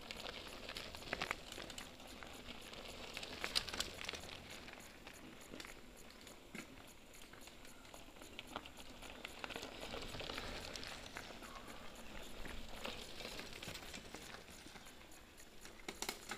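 Mountain bike tyres crunching over a gravel dirt road as riders pass one after another. The noise swells and fades several times, with scattered small clicks and rattles.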